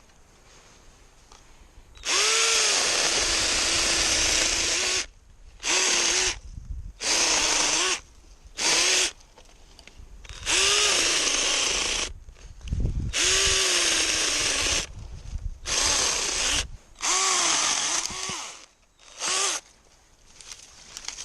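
Drill Pro cordless mini chainsaw's electric motor running in repeated trigger pulls, about nine bursts from half a second to three seconds long. In each burst the pitch rises as the motor spins up and then drops.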